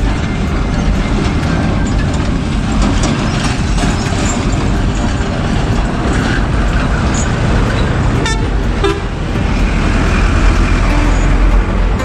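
Road traffic passing close by on a dirt road: trucks, a bus and motorcycles driving past with engine noise, and vehicle horns tooting.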